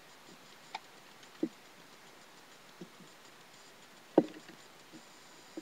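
A few scattered light clicks and knocks from a white plastic WowWee RoboPet robot dog being turned over in the hands, with one sharper knock about four seconds in.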